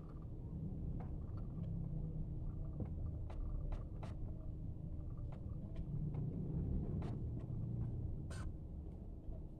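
Ironing by hand: a low, uneven rubbing as an electric iron is pushed over cloth on the ironing board, with scattered light clicks and taps, the sharpest near the end.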